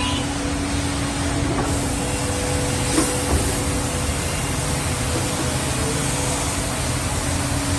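Multi-spindle head of a CNC mortiser and tenoner running and machining wooden parts: a steady whine from the spindle motors over even cutting noise. The noise turns brighter about two seconds in, with one light knock a second later.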